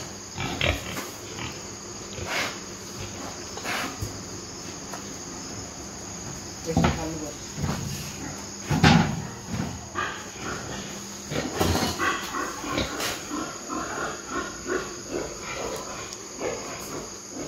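Pigs making short, irregular calls, coming more often in the second half.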